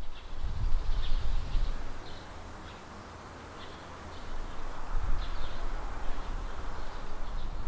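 Wind buffeting the microphone in uneven gusts, with a bird's short high chirps repeating over it.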